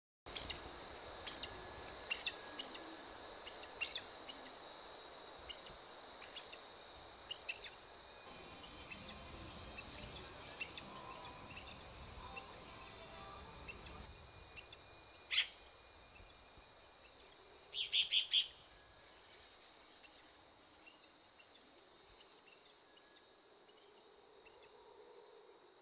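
Birds chirping in short calls over a steady high-pitched insect hum. Past the middle comes one loud, sharp call, and a few seconds later a quick run of four loud notes.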